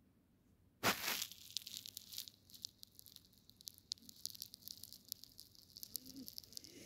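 A sudden loud rustle about a second in, then rapid crackling clicks and rustling: fabric rubbing close to the microphone.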